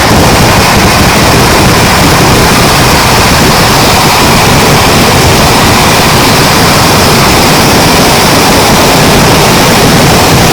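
Massed firecrackers going off in a dense barrage, the bangs so fast that they merge into one continuous loud din that overloads the microphone.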